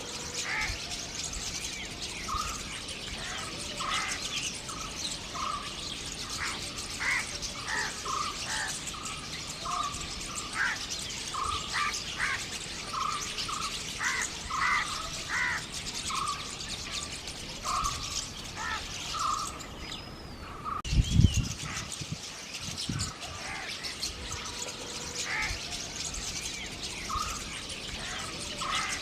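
Birds chirping outdoors: many short, separate notes at irregular intervals over a steady high hiss. A single low thump about three quarters of the way through.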